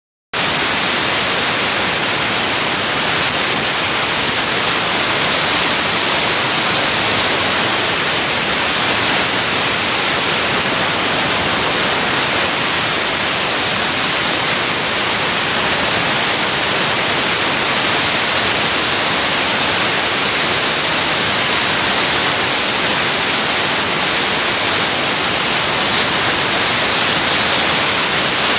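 Dry ice blaster firing continuously through a flat nozzle: a loud, steady hiss of compressed air and dry ice pellets.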